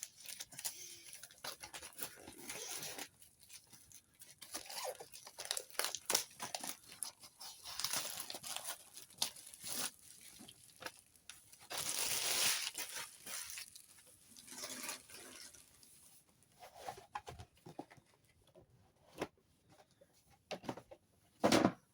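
Trading-card packaging being torn open and handled, with irregular crinkling and tearing of plastic wrap and foil and a longer stretch of rustling about halfway through.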